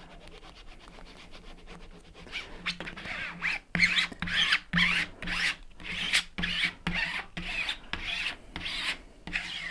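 Rubbing strokes as the red layer of a two-part vinyl decal is pressed and smoothed down. They start about two seconds in and repeat at roughly two a second.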